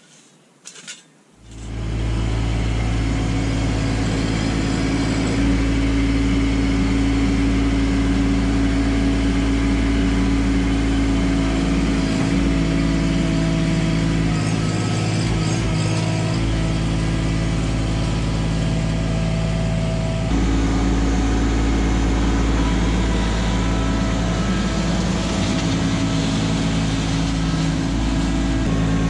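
A Kubota LX2610 compact tractor's three-cylinder diesel engine running steadily while the tractor grades dirt with its box blade. The engine sound starts abruptly about a second and a half in after a few faint clicks, and its note shifts between about twelve and twenty seconds in.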